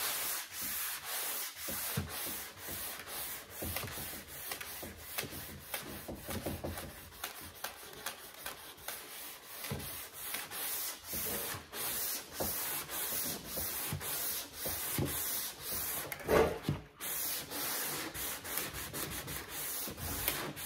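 Sandpaper being worked by hand over primed truck body panel in long, even back-and-forth strokes, about two a second and a little quicker near the end, taking off the guide coat to show the low spots.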